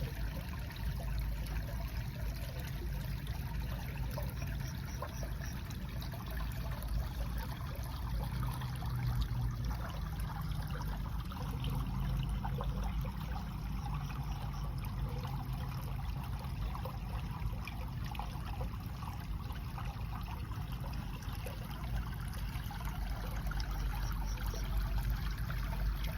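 Water running and trickling steadily, an unbroken flow.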